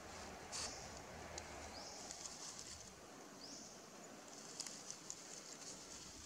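Dry leaves crackling in short clicks as the macaques shift on the leaf litter, under faint outdoor ambience with a high rising call repeating about three times.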